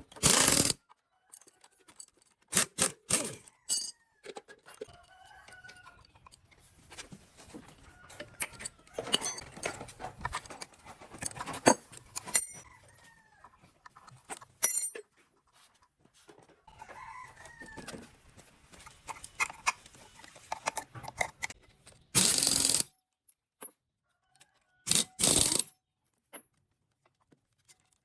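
Scattered clicks and knocks of tools and metal parts being handled, with several short animal calls that rise and fall in pitch in the background. Near the end come two loud bursts of noise, under a second each.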